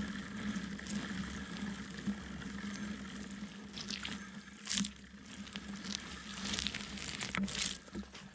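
Mountain bike rolling along a muddy trail, heard from a camera on the chain stay right beside the rear tyre and chain: a steady rolling rumble through mud and wet dirt with several sharp clatters of the chain and frame over bumps.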